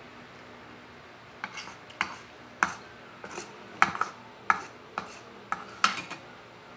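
Metal spoon and fork clinking and scraping on a ceramic plate of noodles. About a dozen sharp clinks, irregular, starting a second and a half in and stopping about a second before the end.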